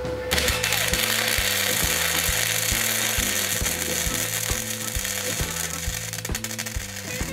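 Arc welding crackle and hiss as a bead is laid on a brake rotor, starting a moment in. Background music with a steady beat runs underneath.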